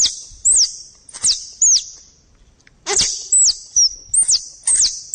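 Plantain squirrel calls used as a hunting lure, a blend of mating and fighting calls: a run of sharp, very high chirps, each sweeping quickly down in pitch, about ten in all, with a short pause about two seconds in.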